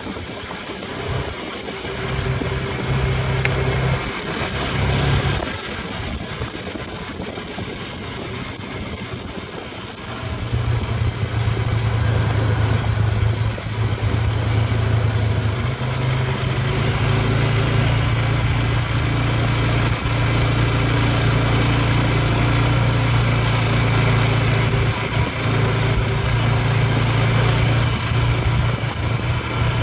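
ATV engine running, with two brief surges early on, then pulling louder and steadily from about ten seconds in.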